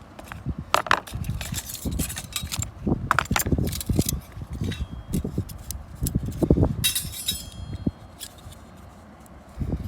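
Camping gear being handled: irregular knocks and low thuds, with light metallic clinks and a brief ringing clink past the middle.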